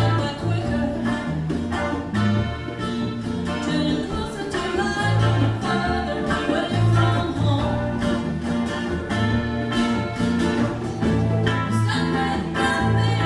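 A band playing a song with electric and acoustic guitars, bass guitar and percussion, with singing over it.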